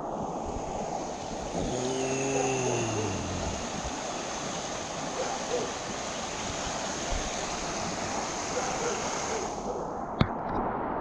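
Creek water rushing and splashing around an inflatable tube drifting through a shallow, rocky riffle. About two seconds in, a brief low voice slides down in pitch; the high rushing drops away shortly before one sharp knock near the end.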